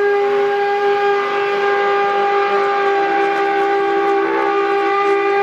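Bulldozer blade scraping the ground, giving off a long, steady tone held at one pitch with a stack of overtones.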